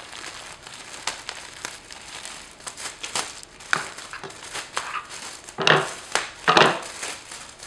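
Clear plastic packaging bag crinkling and rustling as it is handled and opened to get at the socks inside, with two louder bursts of crinkling about two thirds of the way through.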